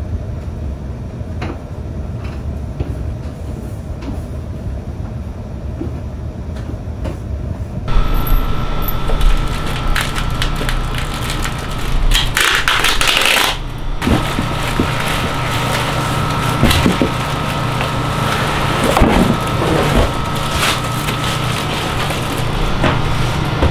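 Cardboard box and plastic packing being handled while unboxing: rustling, crinkling and crackling, with a loud burst of crinkling about twelve seconds in. Before that, a quieter stretch with a few light knocks; a steady hum runs under the unpacking.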